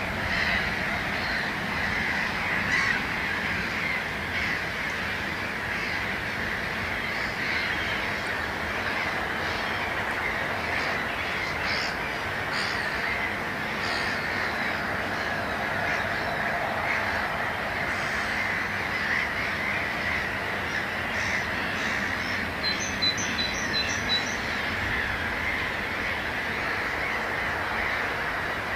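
A dense, continuous chorus of many water birds calling in a wetland: a steady din of harsh, overlapping calls. Toward the end a smaller bird gives a quick run of about five high, clear notes.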